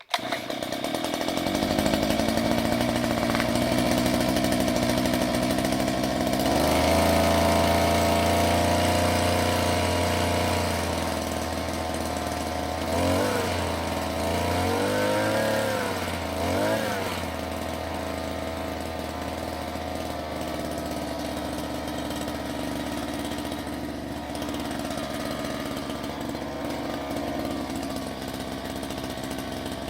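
Small 2 hp two-stroke, air-cooled outboard motor built on a whipper-snipper engine, starting and running. About seven seconds in its note steps up, between about 13 and 17 seconds it revs up and down a few times, then it settles to a steady idle.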